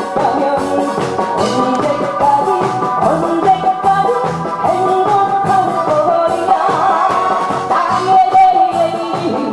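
A singer singing into a handheld microphone over amplified backing music with a steady beat.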